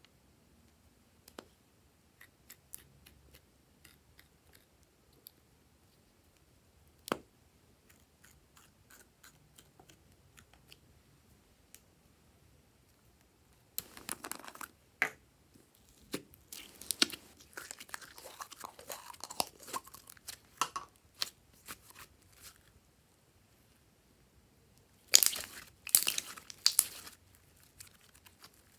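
Small plastic toys being handled, with scattered light clicks and taps. Then stretches of wet crackling and popping from slime being squeezed and kneaded, loudest in a cluster of sharp crackles near the end.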